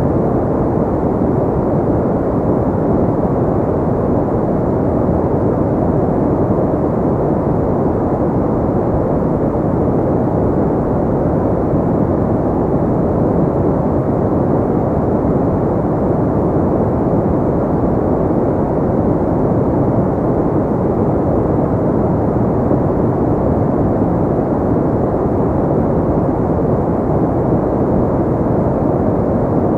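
Steady white-noise track for sleep, a constant deep hiss with little treble, the kind often called brown noise. It holds even throughout, with no tones or rhythm in it.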